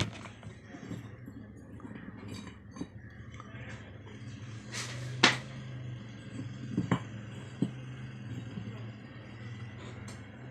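Clinks and knocks of small hard objects being handled, the loudest a pair about halfway through, over a steady low hum.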